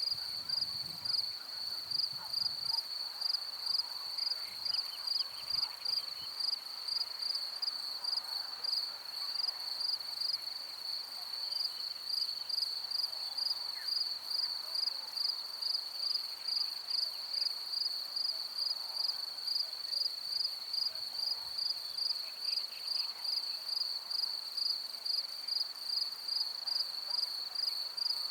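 Field insects, crickets, stridulating in a steady high-pitched trill that pulses about twice a second, with faint scattered calls underneath.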